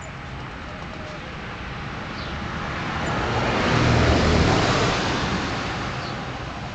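A car passing by: a rushing noise that swells to a peak about four seconds in and then fades away.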